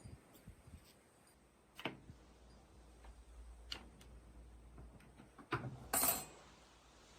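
A few sharp clicks and knocks from small parts being handled and set down, followed by a short, loud scrape about six seconds in.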